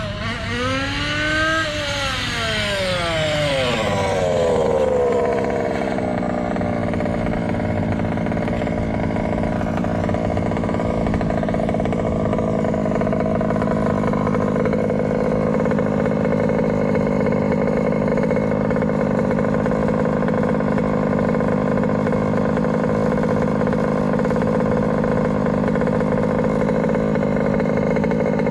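MCD XR5 1/5-scale RC rally car's petrol two-stroke engine revving up and down for about five seconds as the car drives, then idling steadily.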